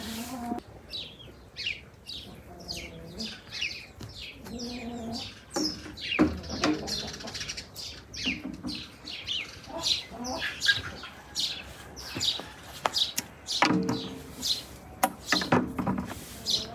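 Small songbirds chirping over and over in quick, falling chirps. A few sharp clinks cut through, once about six seconds in and several more toward the end.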